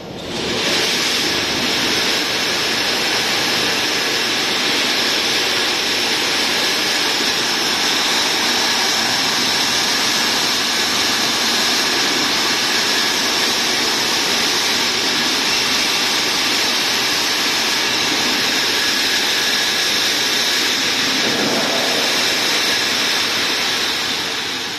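Machinery of an automatic wire mesh welding line running, with its belt-driven wire straightening and feeding units: a loud, steady whirring hiss that comes in suddenly and eases off near the end.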